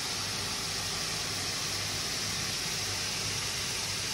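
A steady hiss with a low hum beneath it, unchanging throughout.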